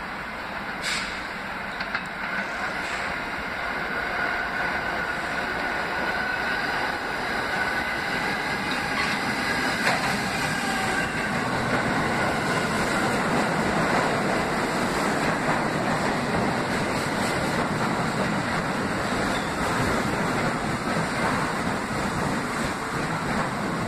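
R68-family New York City subway train approaching along the platform and running past, its wheels rumbling and clacking on the rails. It grows steadily louder over the first half and then stays loud. A faint high squeal from the wheels is heard in the first half.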